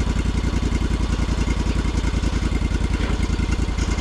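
Sawmill's engine running steadily at low speed with a fast, even pulse.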